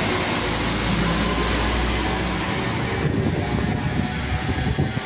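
Class 172 Turbostar diesel multiple unit pulling out and running away down the line, its engine and wheel noise dying down after about three seconds as it draws off.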